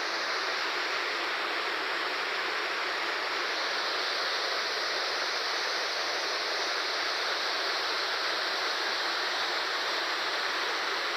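Steady rush of a waterfall, water pouring and splashing without a break.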